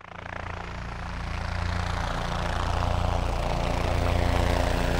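Cinematic intro sound effect: a low, steady droning rumble that fades in and swells, with a hiss over it.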